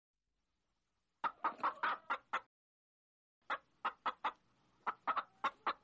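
Desi hens clucking: a quick run of about six short clucks a little over a second in, then after a pause a longer, more spaced series of short clucks.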